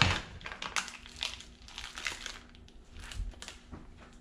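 Plastic wrapper crinkling as it is peeled off a block of fresh mozzarella, in irregular crackles, the loudest right at the start.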